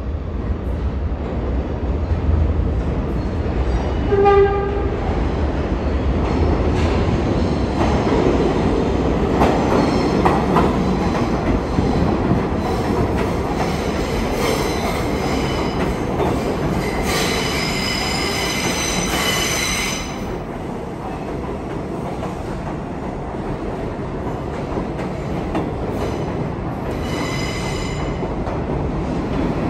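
Vintage R33/R36 Redbird and Bluebird subway train running through the station without stopping. A short horn blast sounds about four seconds in, then the rumble and clatter of the cars' wheels on the rails. A high-pitched wheel squeal comes about two-thirds of the way through, and again briefly near the end.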